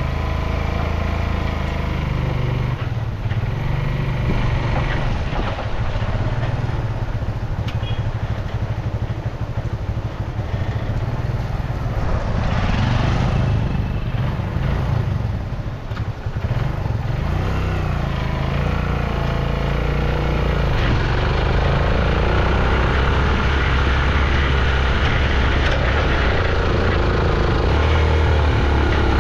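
Motorcycle-with-sidecar engine running under way, hauling a load of sacks; the engine note rises and falls, with a brief drop about sixteen seconds in.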